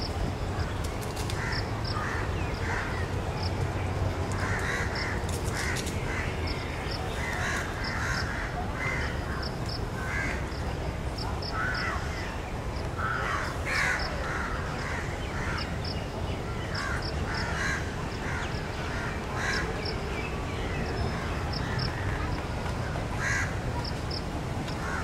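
Birds calling over and over, with harsh, irregular calls and short high chirps in quick pairs, over a steady low rumble.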